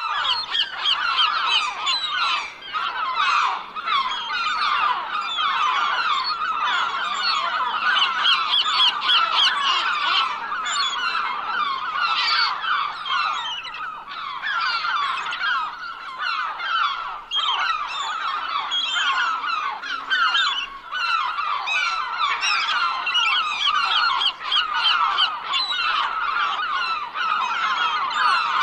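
A large flock of gulls calling all at once: a dense, continuous chorus of many overlapping squawks.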